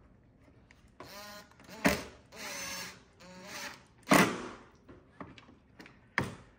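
Cordless driver running in several short bursts, driving T15 Torx screws into the top of the bumper cover, with a few sharp clacks in between.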